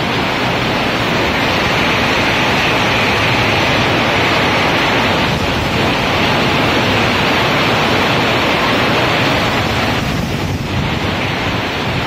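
Storm wind and heavy rain, with wind buffeting the microphone: a loud, steady rushing noise.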